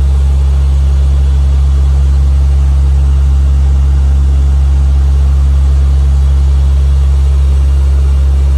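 Lockheed C-130 transport's four turboprop engines and propellers droning steadily in cruising flight, heard loud inside the flight deck.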